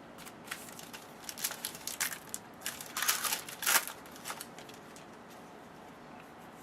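Trading cards and their packaging being handled: crinkling and rustling in short bursts, busiest in the first four seconds, then quieter.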